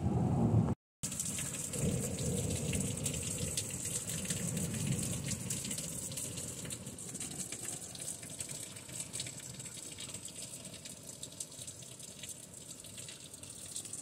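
Freezing rain falling steadily: an even hiss with many small taps of drops striking, cut off briefly about a second in, easing a little toward the end.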